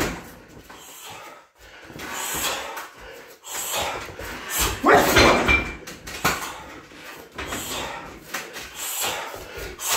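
Heavy punching bag on a free-standing steel stand being hit, with knocks and rattles from the bag and stand, and a loud vocal cry about five seconds in.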